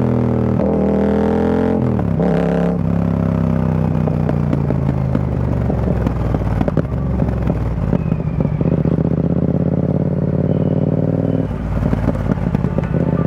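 Yamaha XSR700's parallel-twin engine through an Akrapovic carbon full-system exhaust with the dB killer removed, heard from the rider's seat. It revs up with a rising pitch in the first couple of seconds, drops off with irregular crackles as the throttle closes, then settles into a steady low run while cruising in traffic.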